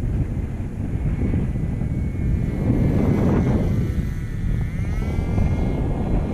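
Irvine .25 two-stroke glow engine of a model aeroplane buzzing in flight, its pitch dipping and then climbing back about halfway through, over a low rumble of wind on the microphone.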